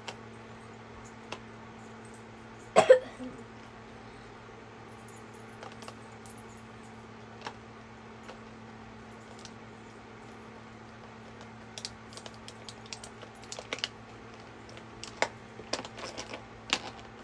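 Paint tubes clicking and tapping against the plastic tray of an acrylic paint set as they are picked up and set into their slots, with one sharp, louder knock about three seconds in and a quick run of light clicks near the end.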